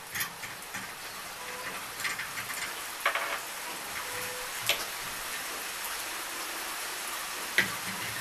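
A few light metal clicks and taps as a nut is taken off the threaded shaft of a homemade hand-cranked fishing line winder, a bolt is set down and a spool is slid onto the shaft, over a steady hiss.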